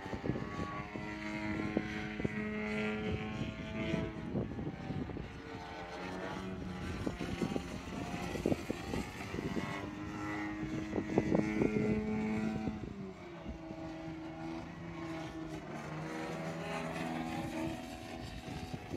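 Engine and propeller of a 120-inch Extreme Flight Bushmaster radio-controlled 3D model airplane in flight. Its pitch steps and glides up and down several times as the throttle changes and the plane passes.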